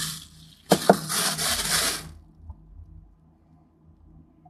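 Thin plastic bag crinkling for about a second and a half, starting with two sharp rustles, as fondant is pulled out of it; then only a faint steady hum.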